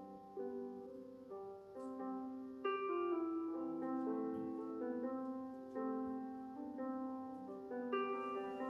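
Background instrumental music: a slow melody of held notes.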